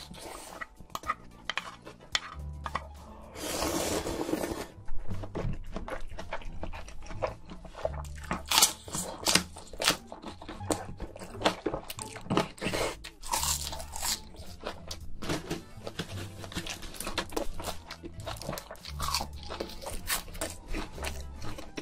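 A person eating close to the microphone: crunching and chewing with many sharp clicks, and a noisy rush lasting about a second about four seconds in. Background music with a repeating bass line plays throughout.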